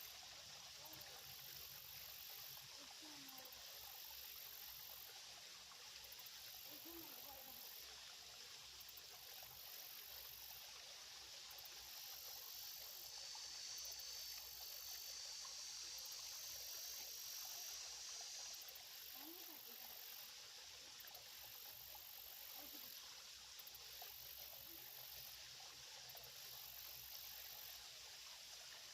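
Faint, steady trickle of a shallow creek's flowing water, with a thin high-pitched hum for several seconds midway.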